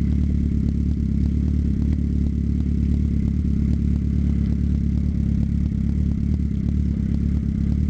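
Suzuki GSX-R 750 sport bike's inline-four engine running steadily under the rider at low speed, a constant low rumble with no revving.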